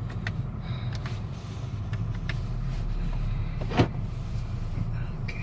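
Car running, heard from inside the cabin as a steady low rumble, with a few light clicks and one sharp knock a little under four seconds in.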